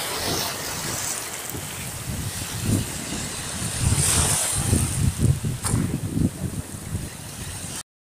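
Small Black Sea waves breaking and washing over the shore right at the water's edge, with a low, uneven rumble and a hissing wash about halfway through. The sound cuts off suddenly near the end.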